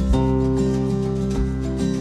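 Background music with a steady low beat.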